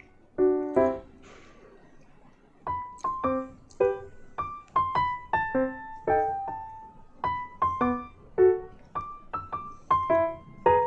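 Background music: a light keyboard melody of short single notes that fade quickly. It pauses briefly about a second in, then picks up again at a steady walking pace.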